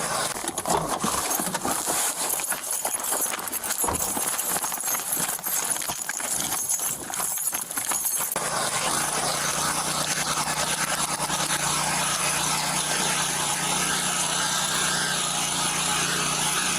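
Quick irregular thumps and rubbing on a body-worn microphone, like an officer running on foot, for about the first half. They give way to a steady engine drone just past halfway.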